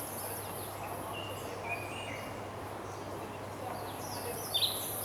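Birds calling in short chirps and whistled notes, a few about a second or two in and a louder cluster near the end, over a steady high-pitched insect drone.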